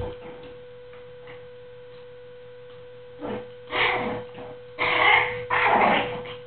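Pomeranian puppy sneezing and snorting: four short bursts in the second half, over a steady electrical hum.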